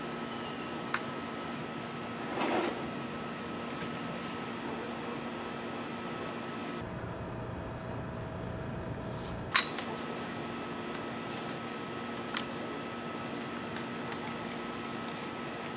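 A few sharp wooden clacks as a kendama ball lands in the cups or on the spike, the loudest about ten seconds in, over a steady mechanical hum. The hum changes for a few seconds in the middle.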